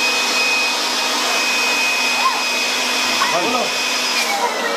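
A steady rushing, hiss-like noise with a thin high tone over it, and the tone starts sliding down in pitch near the end.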